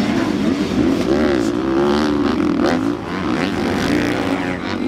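Several motocross bike engines revving up and down together, their pitches rising and falling over each other as the riders work the throttle through the track.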